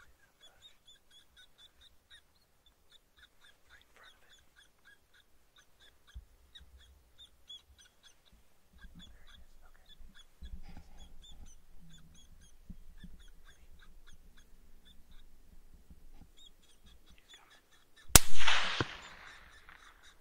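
A single rifle shot near the end, sharp and loud, with its echo rolling away for about a second. Before it, rapid high-pitched chirping repeats many times a second.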